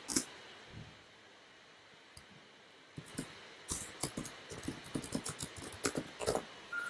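Typing on a computer keyboard. A few keystrokes come at the start, then after a pause of about two and a half seconds there is a steady run of keystrokes.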